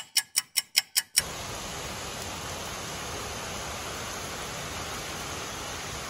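A quick run of sharp, regular ticks, about five a second, for the first second, then heavy rain pouring steadily in a thunderstorm: an even hiss of downpour.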